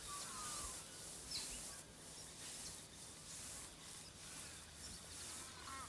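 Faint background hiss with a few faint bird calls: short chirps near the start and again near the end.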